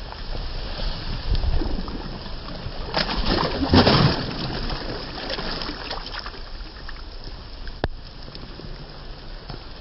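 A person jumping into ankle-deep floodwater, one heavy splash about three seconds in, over a steady hiss of rain and wind. A single sharp click comes near the end.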